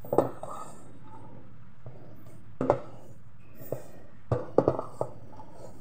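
A hand mixing and kneading a minced-meat and flour dimsum filling in a metal pot, with sharp taps and knocks as the hand and pot bump: one near the start, one each a little before and after three seconds in, and a quick cluster between about four and five seconds in.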